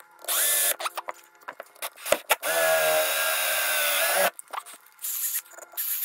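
Cordless drill running in several bursts, with one long run of about two seconds in the middle, boring holes through plastic seat-belt latch tabs that have metal inside.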